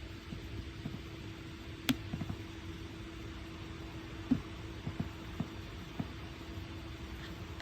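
Steady low room hum with a handful of small taps and knocks, the sort of sounds made by handling things on a desk while studying. There is one sharp click about two seconds in and a louder dull knock a little past the middle.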